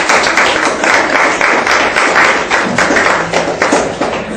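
Audience applause, many hands clapping together, stopping near the end.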